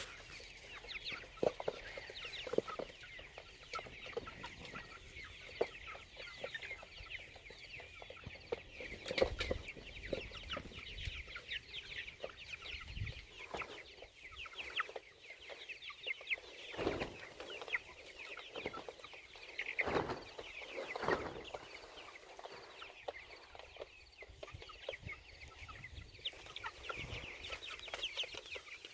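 A flock of chickens peeping and clucking continuously in many short, high chirps, with a few dull knocks scattered through.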